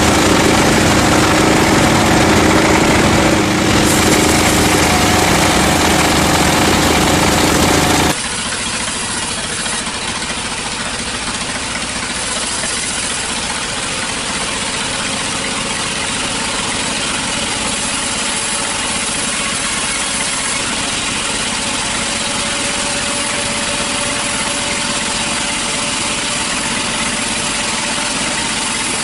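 Sawmill machinery running: a loud, steady mechanical noise with a low hum. About eight seconds in it changes abruptly to a slightly quieter, thinner steady running with a faint whine.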